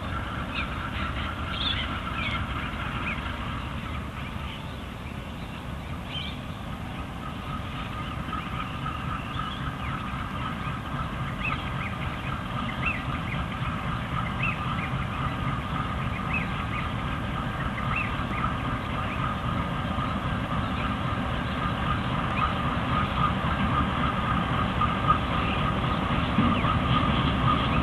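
Queensland Rail diesel-electric locomotive hauling a loaded nickel ore train, its engine rumble growing louder as it approaches, over the steady ringing of level crossing bells.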